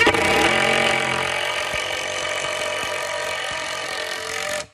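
Cordless drill motor running steadily, driving a screw into framing lumber for about four and a half seconds, then cut off.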